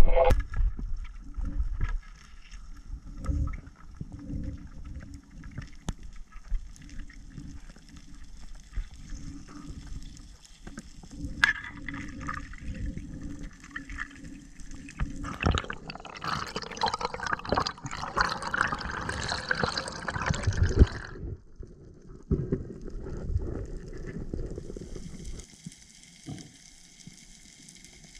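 Underwater sound muffled by a GoPro housing: a sharp speargun shot right at the start, then scattered knocks and water movement, with a louder rush of water noise for several seconds past the middle.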